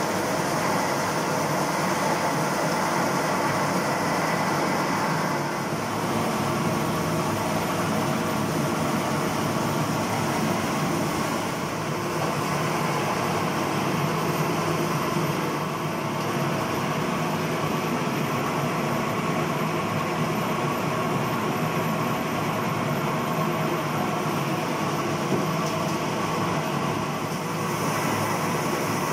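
Electric mole mill running steadily as it grinds soaked dried chiles and bread pushed into its hopper into mole paste.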